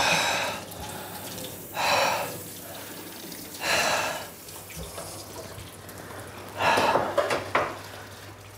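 Water running from a tap into a sink, with louder splashing surges about every two seconds.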